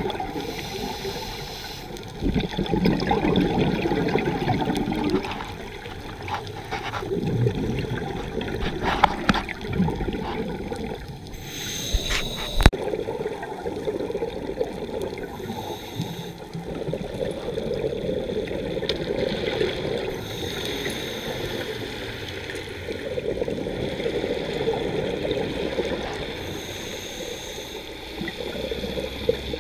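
Scuba breathing heard underwater: swells of gurgling exhaled regulator bubbles every several seconds, with a few sharp clicks near the middle.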